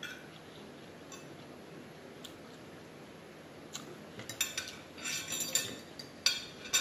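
Metal fork clinking against a plate: a few faint clicks at first, then a quick run of sharp clinks through the second half.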